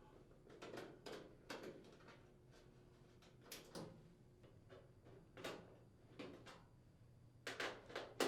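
Faint, irregular clicks and scrapes of a 1/4-inch nut driver unthreading mounting screws from the range's lower rear access panel.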